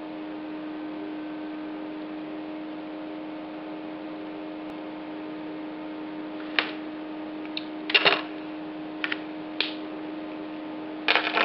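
Mobile phone radio interference picked up by the recording as a call comes in. A steady electrical hum, then scattered crackling clicks from about six and a half seconds in that crowd together near the end.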